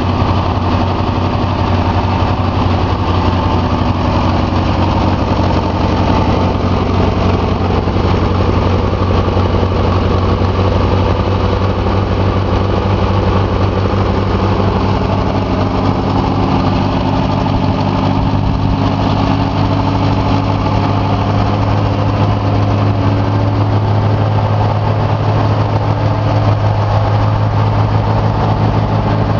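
Case 311-B tractor engine running steadily at a constant speed, on its first run after standing unused for two years.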